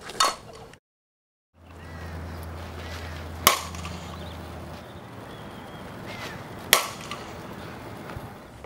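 A softball bat striking softballs: three sharp cracks of contact, about a quarter-second in, about three and a half seconds in and near seven seconds in.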